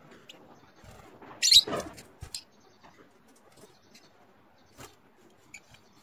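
Peach-faced lovebirds giving short, high chirps. The loudest comes about a second and a half in, followed by a few faint chirps and light clicks.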